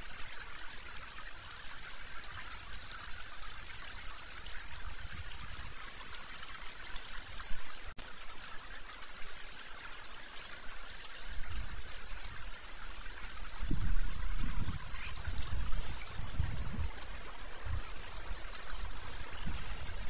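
Steady rush of flowing water, like a stream, with short thin high-pitched bird calls scattered through it, a longer falling call near the start and another near the end. A low rumble, like wind on the microphone, comes and goes in the second half.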